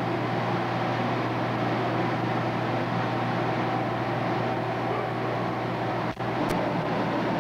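Steady hiss and a low hum on an old videotape soundtrack, with no clear sound from the game itself. About six seconds in, the sound drops out for a moment and then a sharp click follows.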